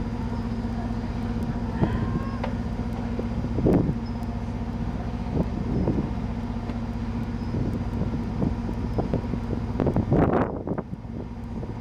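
Tour boat's engine running with a steady low drone, with occasional gusts of wind on the microphone, the strongest about four seconds in and near the end.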